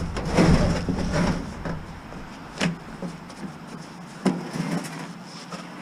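Handling noise from a discarded clothes dryer: rubbing and knocking. A low rumble in the first two seconds gives way to a few separate sharp knocks, the clearest about two and a half and four seconds in.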